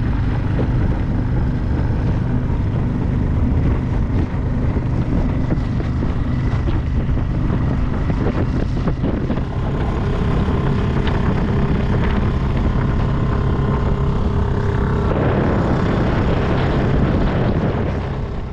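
A dinghy's outboard motor running steadily under way, its drone fading away at the very end.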